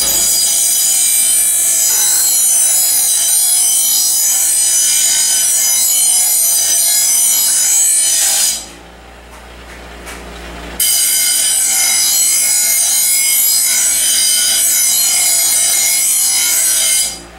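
Steel mower blade being ground on a bench grinder to sharpen its cutting edge: a long, harsh grinding pass, a break of about two seconds in which only the grinder keeps spinning, then a second pass that stops just before the end.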